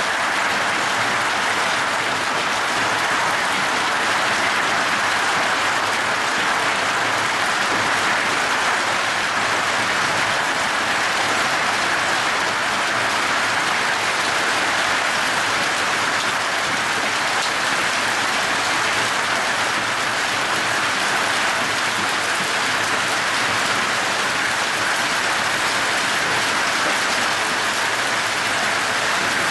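Hail and heavy rain falling together in a dense, steady patter, without letup.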